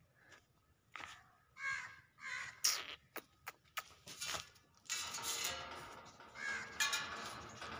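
Repeated short animal calls, coming thicker and louder about five seconds in.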